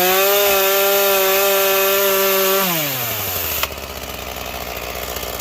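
Ryobi 37 cc two-stroke gas chainsaw, brand new, held at high revs with a steady note. About three seconds in the throttle is released and the engine falls to idle, with a sharp click as it settles.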